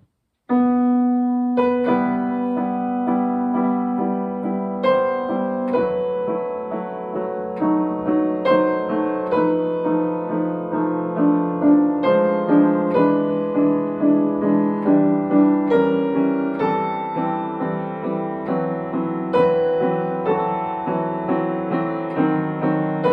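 Upright piano playing a slow, calm piece of chords, a new chord struck about once a second, starting about half a second in.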